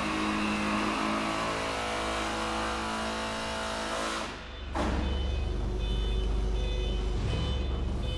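A steady machine hum with several constant tones. It dips briefly about four and a half seconds in, then comes back with a deeper rumble.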